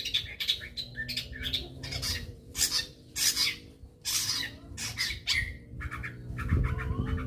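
Long-tailed shrike (cendet) giving a rapid, irregular string of harsh, scratchy squawking calls, two or three a second, over a faint low steady hum.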